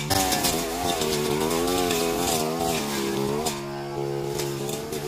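Backpack brush cutter engine revving up from idle as its blade cuts into a leafy bush, the engine pitch dipping and rising under the load. It drops back to a steadier, lower note about three and a half seconds in, then revs again.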